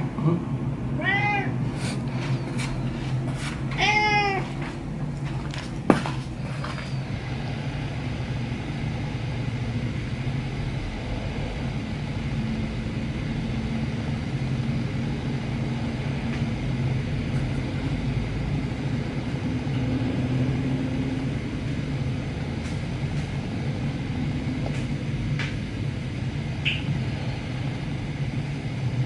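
Ginger domestic cat meowing twice, short arched calls, the second longer. A single sharp click follows about six seconds in, and then a steady low rumble takes over.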